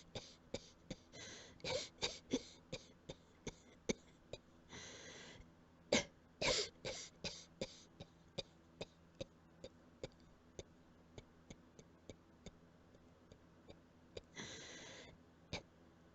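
A person coughing quietly in short, quick coughs, two or three a second, bunched in bursts near the start and around six seconds in, then thinning out and growing softer. A long drawn breath comes about five seconds in and again near the end, as the cougher runs out of breath.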